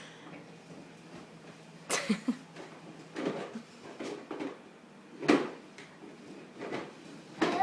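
Scattered knocks and clatters, about six spread over several seconds, from a toddler's toy push mower being pushed and bumped along.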